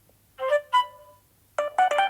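Samsung Galaxy S9 built-in alert tone playing from the phone's speaker: a short melodic chime phrase about half a second in, then a quick run of notes near the end.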